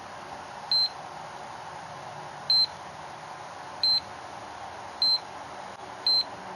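GT Power A6-12 LiPo charger beeping five times, one short high beep for each touch of its capacitive menu buttons as it steps through its settings screens.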